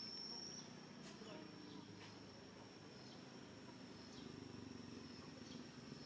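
Insects droning: one steady, high-pitched whine that runs on without a break, with a few faint clicks over it.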